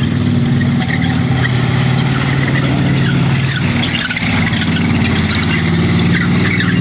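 Stuart light tank driving past at speed, its engine running loud and steady with tracks rolling on pavement. The engine note shifts about four seconds in.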